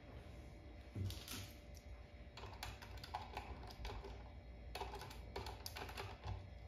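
Light clicks and scrapes of a small screwdriver working the wire terminal screws on a plastic solar charge controller, coming in several short clusters.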